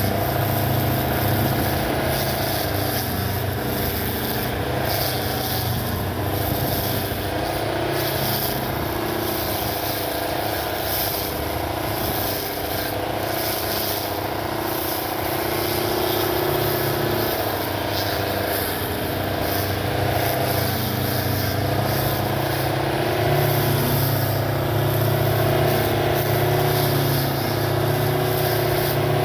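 Electric motor of a home-built battery lawn mower running continuously, a steady motor hum whose pitch rises and dips slightly.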